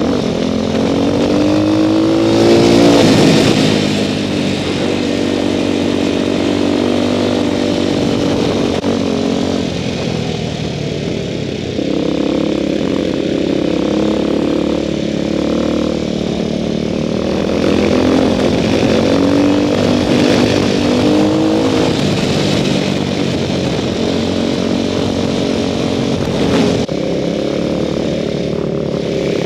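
Motorcycle engine running under way, its pitch rising under acceleration about two seconds in, dropping at a gear change, then rising and easing off again with the throttle, over a steady rush of wind and road noise.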